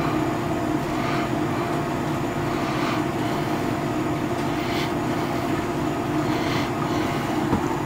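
Steady mechanical drone of onboard machinery, holding one even pitch throughout.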